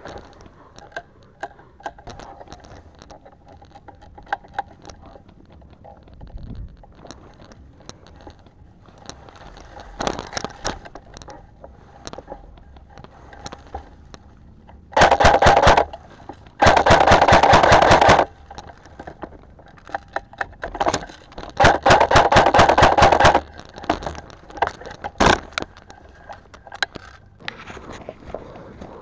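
Airsoft rifle firing on full auto in three rapid bursts, each about a second to a second and a half long, with faint rustling and scattered clicks in between.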